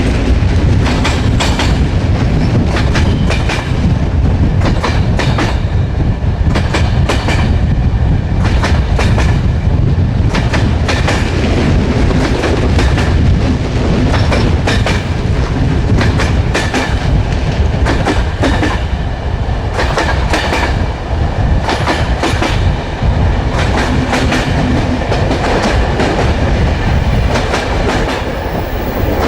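Railway carriage wheels running along the track with a continuous heavy rumble, clicking irregularly over rail joints.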